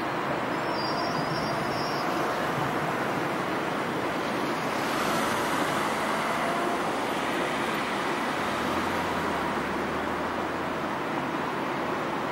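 Stadler FLIRT electric multiple unit rolling slowly into the platform and drawing to a stop: a steady rumbling hiss with faint whining tones, and a brief rise of hiss about five seconds in.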